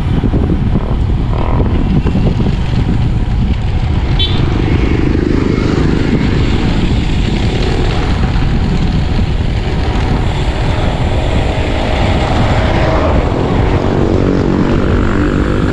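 Loud, steady rumble of wind buffeting the microphone of a camera on a road bike riding at speed.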